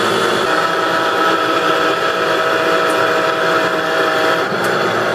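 A low-powered countertop jug blender running steadily, its motor whirring at constant speed as it blends bananas and cream into a smooth mix.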